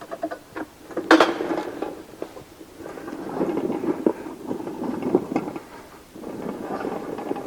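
A sharp metal clank about a second in, then two long stretches of rattling rumble from a small wheeled hydraulic lift being moved away from under the car on a hard floor.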